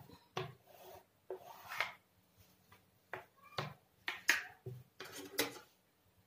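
Fabric being handled and smoothed by hand on a sewing table: a run of short rustles and scrapes, some with a light click.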